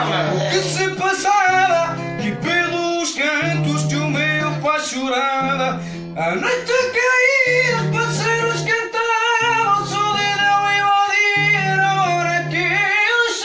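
A voice singing with vibrato to a strummed acoustic guitar (viola), the guitar's low notes changing about every second.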